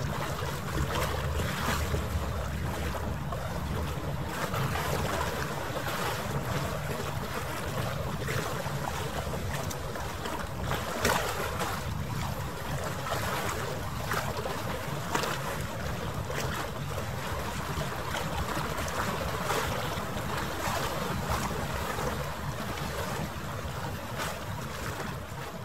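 Wind buffeting the microphone in irregular gusts over a low, steady rumble of harbour water ambience, with the audio played back sped up.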